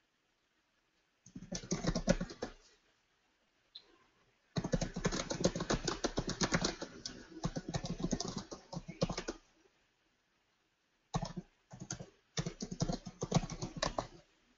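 Typing on a computer keyboard in fast runs of keystrokes. It comes in three spells: a short burst, a longer run of about five seconds, then a few choppy bursts near the end.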